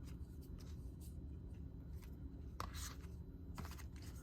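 Trading cards being handled: soft slides and rustles of card stock, with two louder brief swishes about two and a half and three and a half seconds in, over a low steady hum.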